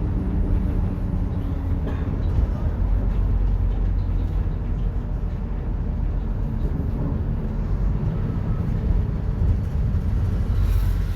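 Mercedes-Benz OF-1721 bus under way, heard from inside: a steady low rumble of drivetrain and road noise with the rear differential droning.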